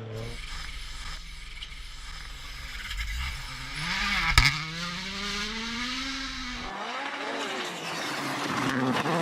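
A rally car passing at speed. Its engine note rises as it approaches and falls as it goes by, with a single sharp crack at its loudest point, about four and a half seconds in.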